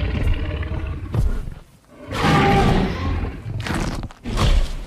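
Dinosaur roar sound effect for a toy T-Rex: several deep, rumbling roars with short breaks between them.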